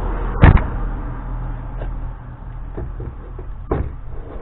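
A heavy car battery with a plastic case, an EverStart Maxx 78, being lowered and shifted into a truck's battery tray. A loud knock comes about half a second in, then a few small clunks and scrapes, and a second knock near the end, over a steady low hum.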